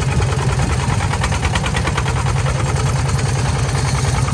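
D15 single-cylinder diesel engine running steadily with a rapid, even beat, powering a homemade hydraulic pile-driving rig.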